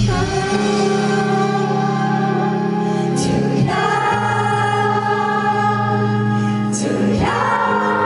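Live music: acoustic guitar and band under wordless singing in long held notes. The notes change about every three and a half seconds.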